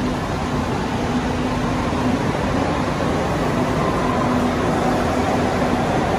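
Madrid Metro train pulling out of an underground station and accelerating away: a steady rumble of wheels on rails with a motor hum, and a faint whine that rises in pitch in the second half.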